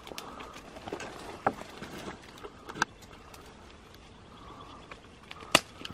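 Twigs and brush cracking and rustling as someone moves through a dense thicket, with a few sharp snaps, the loudest near the end.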